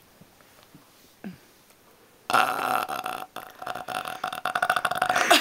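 A girl's long, deliberate burp starting about two seconds in and lasting about three seconds, rough and rattling with a rapid pulse.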